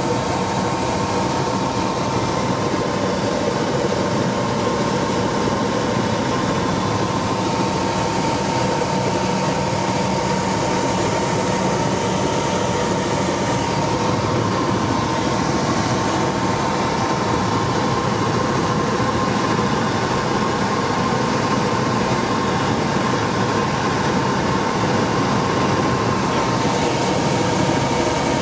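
Helicopter noise heard from inside the cabin: a steady, loud drone of engine and rotor with a steady high whine running through it.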